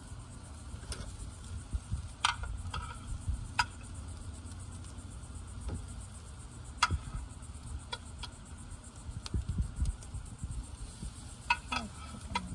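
Heavy metal tongs clinking against a charcoal grill's wire grate as raw chicken wings are set down, a dozen or so sharp clicks at uneven intervals over a low rumble.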